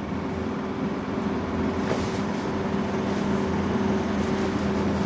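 Steady background noise: a constant hiss with a low, even hum, getting a little louder about two seconds in.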